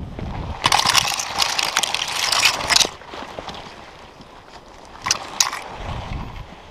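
Conifer branches and needles rustling and scraping right against the microphone as a person pushes through and handles a small pine tree, loud for about two seconds. Two short brushing scrapes follow about five seconds in.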